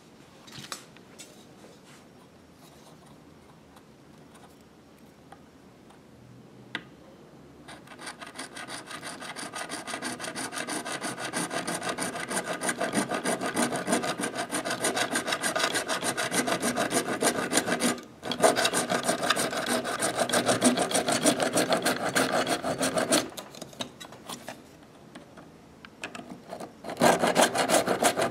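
Hacksaw blade sawing through a PVC plastic pipe in rapid back-and-forth strokes. The sawing starts about a quarter of the way in, breaks off briefly, stops, and starts again near the end.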